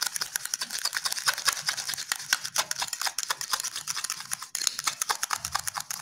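A spoon beating instant coffee, sugar and hot water in a glass bowl, clicking rapidly against the glass several times a second, with a brief pause about four and a half seconds in: hand-whipping dalgona coffee.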